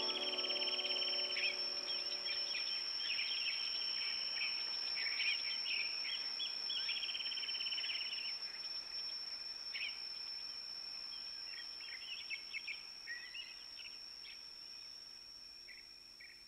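Birds singing and calling in trills and chirps over a steady, high-pitched insect trill, with sustained background music notes fading out in the first couple of seconds. The whole sound fades out toward the end.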